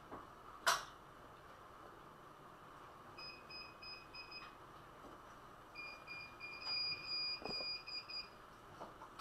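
A sharp click about a second in, then an electronic beeper sounding: a quick run of four or five short beeps, a pause, then a longer run of beeps near the end.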